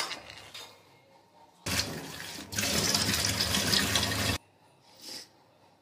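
A sharp knock, then a kitchen tap running into a small plastic cup to fill it with water. The flow starts about two seconds in, grows louder, and stops abruptly.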